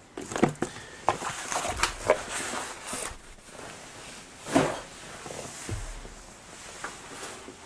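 Handling sounds: a cardboard box of mounted rubber stamps being moved off and back onto a cutting mat, with a string of light knocks and scrapes, the loudest knock about four and a half seconds in.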